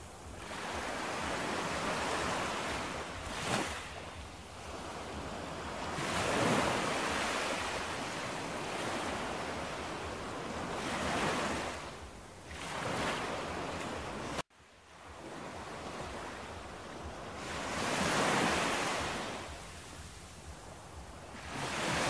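Small waves washing onto a sandy shore, the surf swelling and falling back every few seconds. The sound cuts out suddenly for a moment about two-thirds of the way through, then picks up again.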